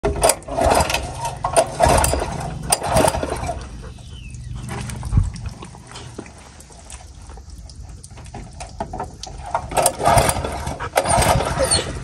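Honda GX200 fire pump engine running roughly in loud, irregular bursts, dying down in the middle and bursting again near the end. The engine is smoking and failing because water has got into its oil.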